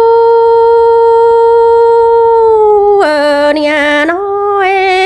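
A woman singing Hmong kwv txhiaj (sung poetry) solo: one long, steady, high held note that drops about three seconds in to a lower, wavering, ornamented phrase, rising again near the end.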